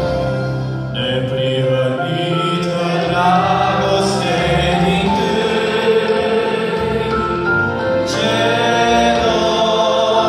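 Male voices singing a Christian song in Romanian over sustained instrumental accompaniment, amplified through a church PA. After a short instrumental stretch, the singing comes in about a second in.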